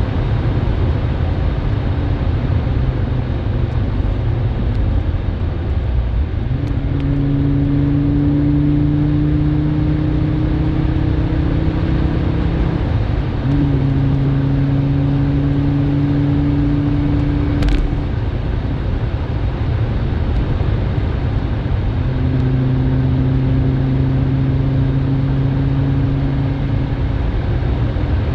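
Audi 90 B2's five-cylinder engine running over a constant low rumble, its steady note fading in and out, rising slightly and dipping once. A single sharp click sounds about two-thirds of the way through.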